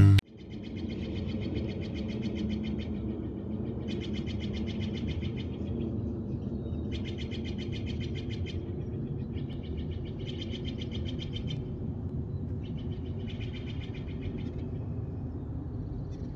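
A songbird giving rapid high trills, about six of them, each lasting one to two seconds with short gaps between. Under them runs a steady low outdoor rumble.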